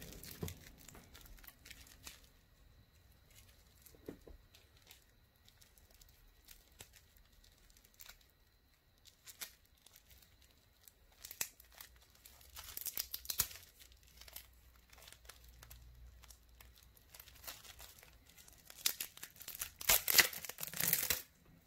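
Packaging of a replacement watch band being worked open by hand: scattered rustling and small clicks, with a louder cluster of tearing and rustling near the end.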